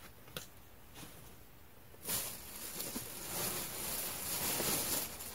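Clothing rustling as garments are handled close to the microphone, starting about two seconds in and lasting about three seconds, after a soft click near the start.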